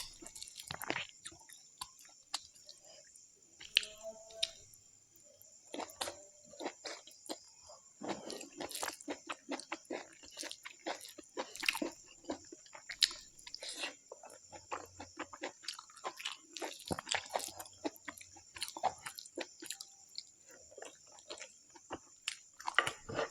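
A person chewing a mouthful of pork curry and rice close to the microphone: a steady run of small wet clicks and squelches, with the odd crunch.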